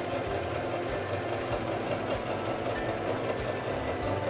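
Electric sewing machine stitching a straight running stitch at a slow, steady pedal speed, its needle strokes clicking evenly about three times a second over the motor's hum.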